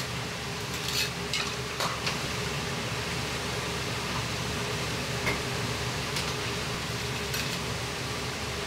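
Hot oil sizzling over a steady kitchen roar, with scattered sharp clinks of metal wire frying baskets knocking against the wok and stockpot as oil-blanched pork is lifted out and drained.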